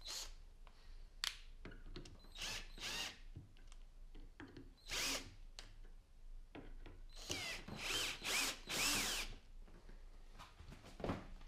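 Electric drill running in several short bursts, its motor pitch sliding up and down with each trigger pull.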